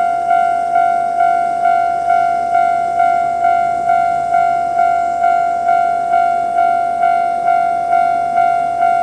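Japanese railway level-crossing alarm sounding its standard electronic bell: one ringing note struck about twice a second, each stroke fading before the next. It signals that a train is approaching and the crossing is closed.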